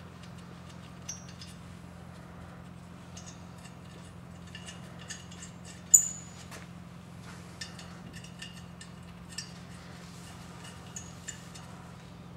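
Light metallic clicks and clinks of nuts being fitted by hand onto the studs holding a disc brake caliper mount to a Dana 30 spindle, with one sharper clink about six seconds in. A steady low hum runs underneath.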